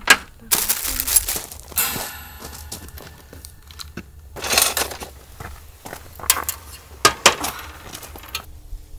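Metal camping gear being handled: a run of clanks, knocks and clattering, some with a short metallic ring, the loudest knocks just after the start and around seven seconds in. Plucked guitar music begins near the end.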